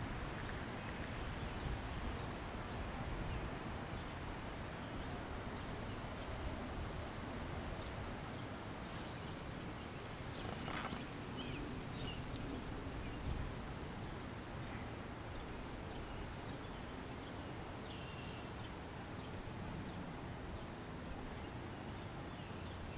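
Outdoor ambience at a pond: a steady low rumble of wind on the microphone, with faint chirps and a couple of sharp clicks about halfway through.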